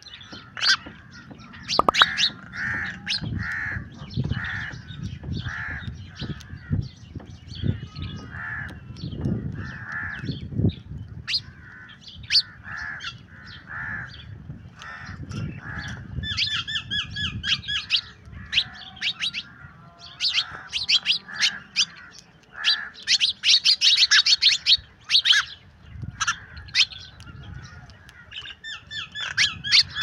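House sparrows chirping busily, many short sharp chirps overlapping. Harsher squawking calls come in several bursts, the loudest a little past the middle.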